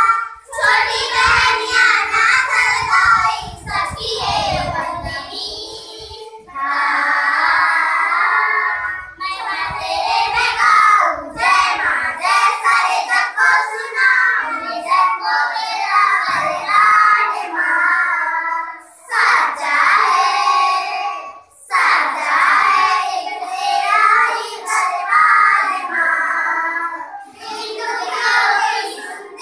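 A group of young girls singing a devotional song to the goddess Chandrahasini in unison, unaccompanied, in phrases of a few seconds with short pauses between them.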